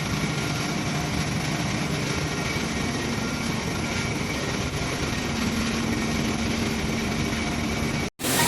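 Base oil distillation machine running: a steady, dense machinery hum with a few constant tones. It cuts off suddenly near the end.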